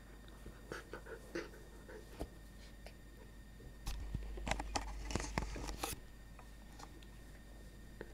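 Close rustling and scraping of a sheltie puppy's fur brushing against the camera microphone, with scattered small clicks; loudest from about four to six seconds in.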